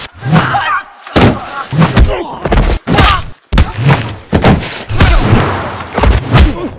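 A rapid run of heavy thuds and impacts from film fight and fall stunts, with brief bits of voice mixed in and several abrupt cuts in the sound.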